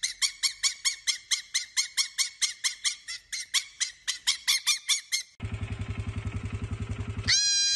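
Fennec fox chattering: a rapid run of short, high chirps, about five or six a second, for about five seconds. Then a baby goat bleats, first a low, rough call and near the end a higher, steadier one.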